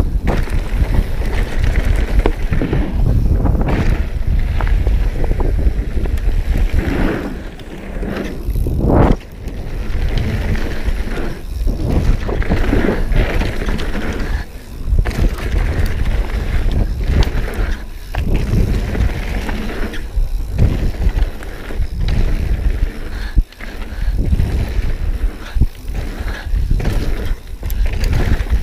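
Mountain bike ridden fast down a dirt jump trail: a steady rush of tyre and rolling noise with the bike rattling, broken by a few short dips and a sharp knock about nine seconds in.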